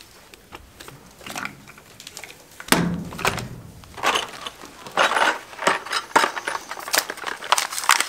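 Metal gate latch hardware being handled: scattered clicks and small metallic rattles, busier and louder from about three seconds in.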